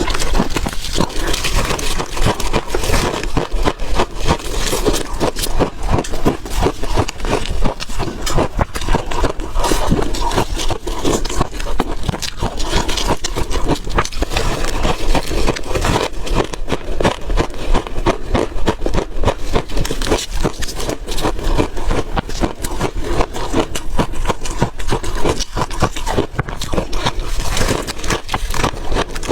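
Close-miked crunching and chewing of refrozen ice: a dense, unbroken run of crisp cracks and crunches.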